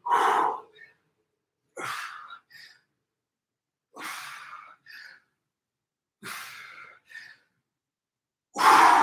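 A man's forceful breaths out, about one every two seconds, each with a short second puff after it, timed to the repetitions of a standing side bend. The first and last breaths are the loudest.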